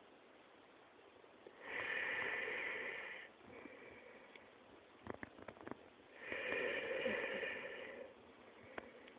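Muffled underwater water noise picked up by a submerged camera phone: two swells of swishing, gurgling noise about four seconds apart, with a few faint clicks between them.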